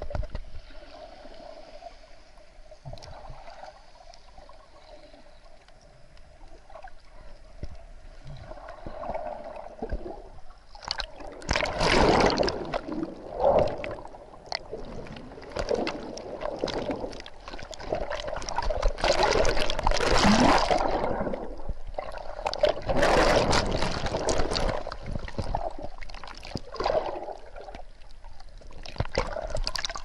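Sea water churning in shallow surf among rocks, heard from under water: a muffled rushing and bubbling. It stays fairly quiet for the first ten seconds, then loud surges come and go every few seconds as waves wash through.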